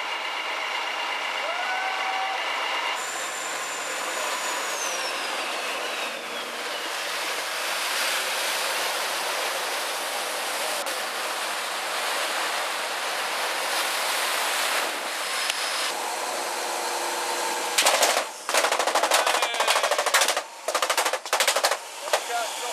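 Steady rush of wind and sea water around a fishing boat under way. About eighteen seconds in this gives way to a run of loud, sharp, irregular bangs.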